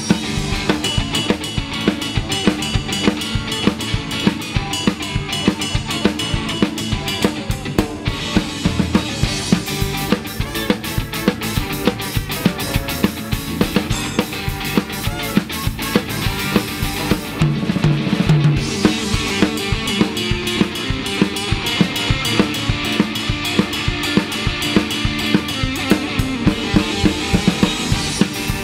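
Live ska band playing an instrumental number, the drum kit loudest with a steady beat of bass drum, snare and rimshots over bass, guitar, organ and horns.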